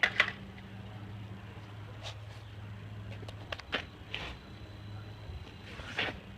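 A few light clicks and knocks of the cut-up plastic Nerf blaster being handled and pulled apart, over a steady low hum.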